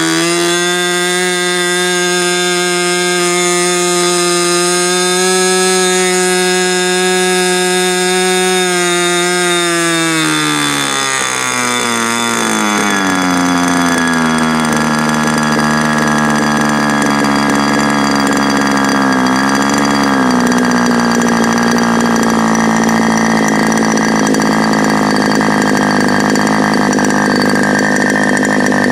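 OS 61SF ringed two-stroke glow engine turning an APC 12x6 propeller on a test stand. It opens up to high speed right at the start and holds there for about ten seconds, then is throttled back: the pitch falls over a couple of seconds to a steady low-speed run. Its low-speed mixture is set on the rich side.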